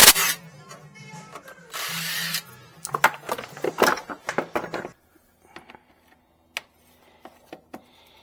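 Background music over metallic clinks and knocks of hand tools on car parts, with a short hissing burst about two seconds in. It all stops about five seconds in, leaving only a few faint clicks.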